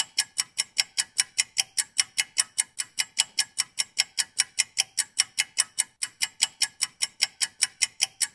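A clock ticking quickly and evenly, about four sharp ticks a second.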